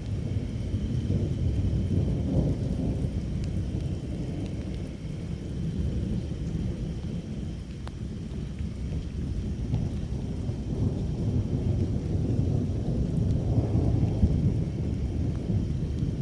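Thunder rumbling in long low rolls through a thunderstorm, with rain falling. The rumble swells about two seconds in and again near the end.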